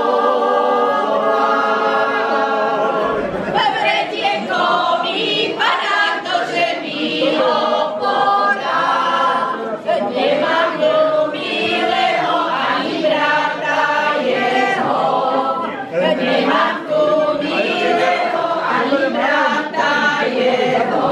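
A group of women and men singing a Slovak folk song together, unaccompanied.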